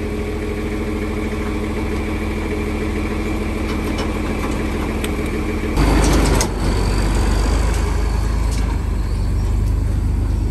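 John Deere farm tractor's engine idling steadily. About six seconds in there is a brief loud noisy burst, and a heavier low rumble continues after it.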